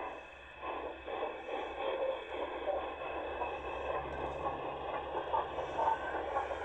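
Large-scale Bachmann model steam locomotive running along garden-railway track, giving a steady rattling running noise that settles in about half a second in.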